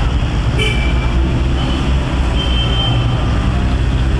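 Busy city street traffic noise: a steady, loud low rumble of engines, with brief horn toots, about a second in and again around the middle.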